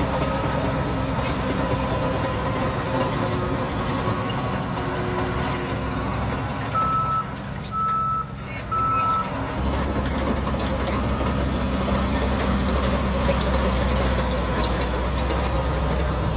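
Bulldozer diesel engine running steadily, with a reverse alarm sounding three short beeps about a second apart a little under halfway through. The low engine note gets stronger about ten seconds in.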